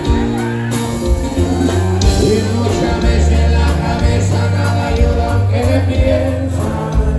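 Live norteño band playing: button accordion and acoustic guitar over drums, with singing.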